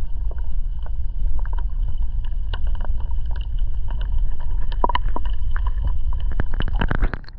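Wind buffeting the microphone with a heavy low rumble, over irregular splashes and slaps of water against a kayak. The wind noise drops away sharply about seven seconds in.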